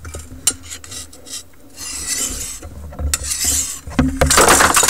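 Steel butcher-knife blade stroked across an oiled, very fine sharpening stone: a run of rasping scrapes about one every second and a half, the last one the loudest, with a few light metal ticks as the blade meets the stone.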